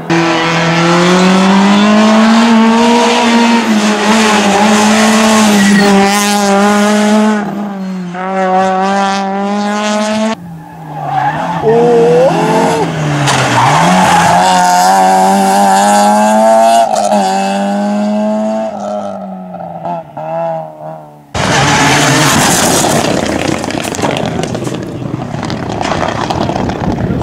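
Rally cars racing on a tarmac stage: the engines are held high in the revs, their pitch dropping and climbing again as the cars brake and accelerate through the corners. The sound cuts between cars twice, and after the second cut, about 21 seconds in, there is only a loud rushing noise with no clear engine note.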